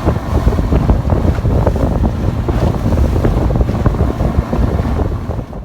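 Loud wind rumbling and buffeting the microphone, cutting off suddenly near the end.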